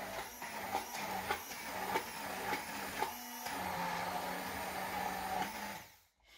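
Electric immersion blender running in a tall cup, blending a thick red pepper-paste marinade, its motor whining steadily with a soft knock about every half second. The motor dips briefly about halfway through, then stops just before the end.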